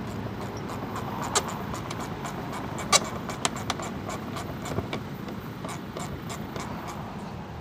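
Light, irregular clicks and taps of a hand tool and plastic trim as a bolt is fitted by hand at the corner of a car's plastic front bumper cover by the wheel well, with one sharper click about three seconds in, over a steady outdoor background hiss.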